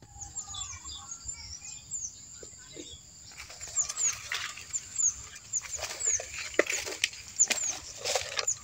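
Birds chirping, one short high call falling in pitch repeated again and again. From about three seconds in, rustling and crunching of dry leaves and undergrowth as someone moves through the plants.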